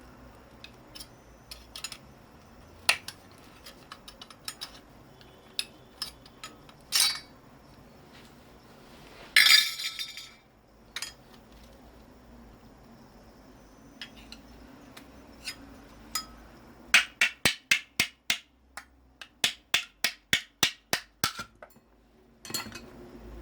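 Metal clinking and tapping as scrap electric motor parts are handled, with a short scraping burst, then a quick even run of about eighteen sharp metallic strikes near the end.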